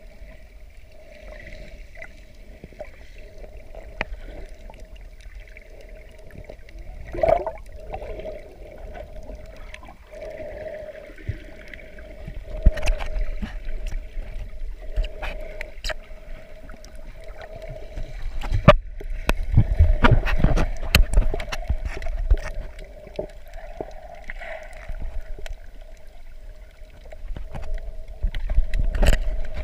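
Water sloshing and gurgling around a handheld waterproof camera held just under and at the sea surface while snorkeling, over a steady hum, with scattered clicks and knocks of handling. Heavier low rumbles of surging water swell up about two-thirds through and again near the end.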